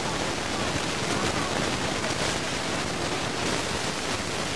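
Steady, even hiss of background noise with no distinct event and no clear speech.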